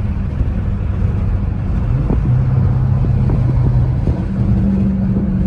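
Straight-piped 5.7 HEMI V8, mufflers and resonators removed, with a deep, steady exhaust drone while driving. Its pitch steps up about two seconds in and again about four seconds in.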